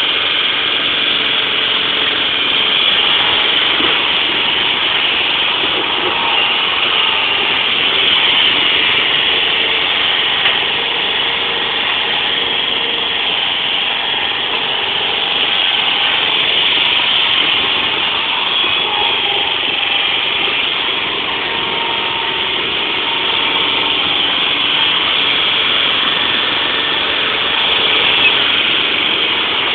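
Truck-mounted forklift's engine running steadily as the machine drives and lifts pallets, swelling a little in loudness now and then.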